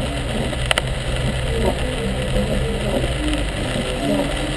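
Heavy rain on a moving car with tyre and road noise, heard from inside the cabin: a steady wash of noise over a low rumble that eases slightly about three seconds in, with one sharp click about two-thirds of a second in.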